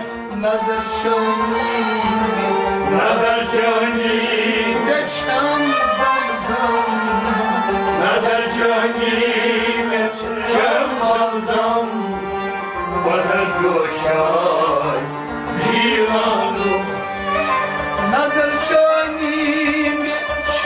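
Kashmiri Sufiana kalam music: a harmonium holding sustained reedy notes, with sharp percussive strikes throughout and melodic lines that bend in pitch at times.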